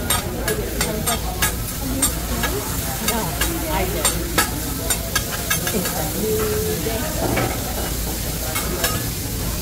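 Food sizzling on a hibachi (teppanyaki) griddle, with metal spatulas clicking and scraping on the hot plate in quick, irregular strokes.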